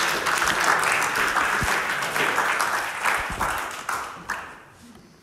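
Audience applauding, the clapping thinning out from about three seconds in and dying away near the end.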